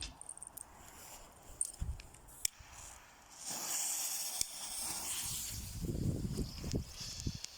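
A lit firecracker fuse hissing steadily, starting about three and a half seconds in, after a few faint clicks.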